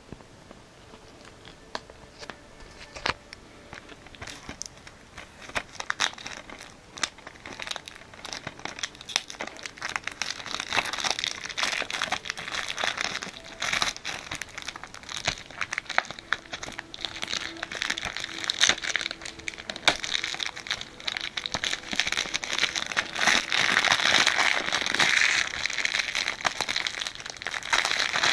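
Plastic wrapping on a Blu-ray box set crinkling as it is handled and pulled off, with scattered small clicks and crackles. It grows denser and louder as it goes and is loudest near the end.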